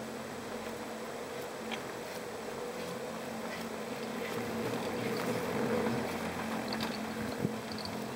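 Pair chairlift in motion, heard from the chair: a steady low hum over a rushing noise, swelling a little around the middle, with a few faint clicks.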